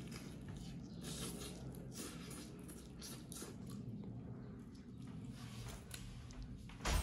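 Soft, wet biting and tearing at a roasted lamb leg's meat, with chewing, in irregular small crackles. A sharp knock near the end is the loudest sound.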